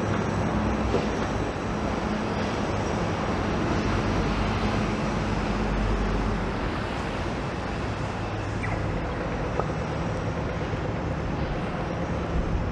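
City street traffic noise, steady, with the low hum of engines running and a deeper rumble swelling about halfway through.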